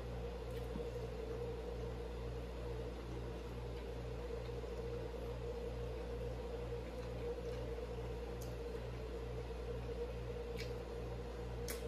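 Steady machine-like hum, a low throb pulsing a little over twice a second under a constant drone, with a few faint clicks.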